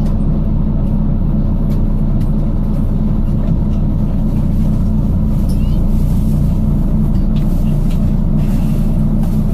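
Volvo B9TL double-decker bus heard from inside, its six-cylinder diesel engine running steadily under way with a low drone, while faint clicks and ticks come through now and then. The uploader calls the bus clapped out, with a ticking sound.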